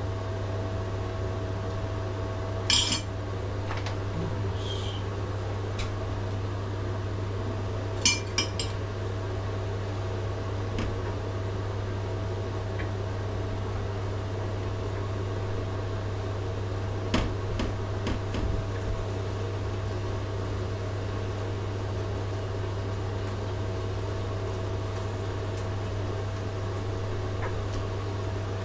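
A utensil clinking a few times against a small ceramic bowl while avocado is scooped into it, with sharp clicks a few seconds in, around eight seconds and a cluster in the middle. Under it runs a steady low electrical appliance hum.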